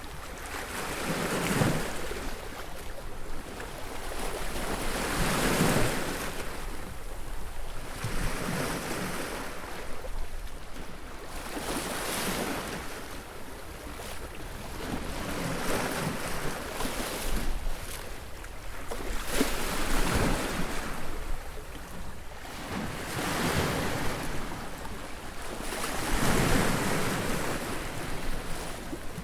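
Ocean surf: waves breaking and washing up the shore one after another, the hiss swelling and fading every few seconds.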